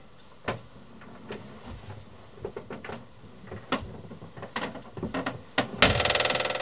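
Light knocks and clicks of someone moving about a small boat cabin, then a loud rasping creak for just under a second near the end as the wooden cabin door is passed.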